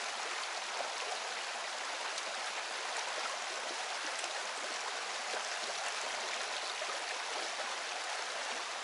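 Mountain river water rushing, a steady even noise.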